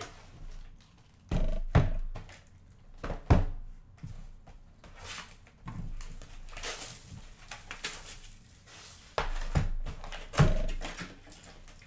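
A cardboard Topps Series 2 hobby box of trading cards being handled on a table: several sharp knocks as it is set down and moved, with a stretch of rustling from the wrapped packs and box in the middle.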